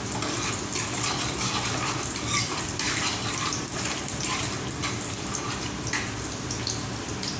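Chopped garlic frying in hot oil in a pan: a steady sizzle with many small crackles and pops.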